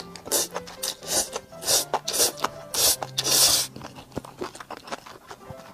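Close-miked eating sounds: a quick, irregular run of loud, rasping bursts from mouth and food, the longest just past three seconds in.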